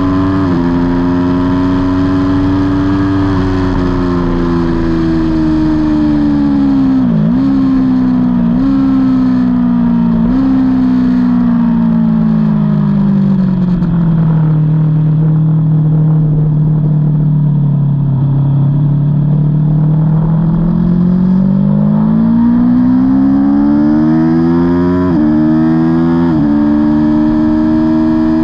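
Aprilia Tuono V4 motorcycle's V4 engine heard on board: revs fall under braking with three quick downshifts, run low through a slow corner, then climb under hard acceleration with two upshifts near the end.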